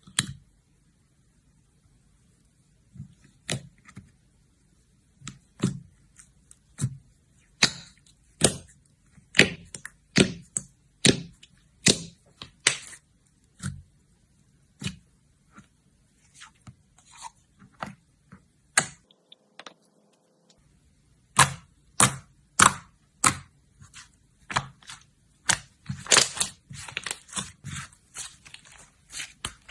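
Slime being handled, giving sharp pops and clicks about one or two a second that thicken into a quick crackle near the end.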